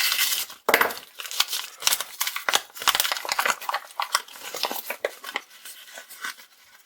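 A mail package being torn open by hand, its packaging crinkling and rustling in quick, irregular crackles, loudest in the first second and tapering off near the end.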